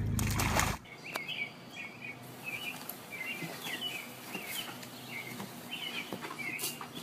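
A brief loud splash that cuts off under a second in, as a child lands on the pool at the end of a water slide. Then small birds chirp again and again, a couple of calls a second.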